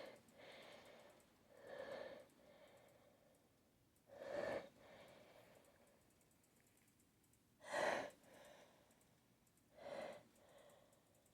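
A person's breathy gasps and sighs between sneezes, about five short breaths a couple of seconds apart, the loudest about two-thirds of the way through: the catching breaths of someone working up to a sneeze.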